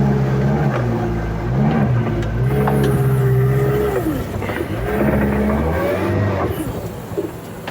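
The amphibious all-terrain vehicle's 109 hp Toyota engine running under load, its pitch rising and falling several times as it is revved up and eased off.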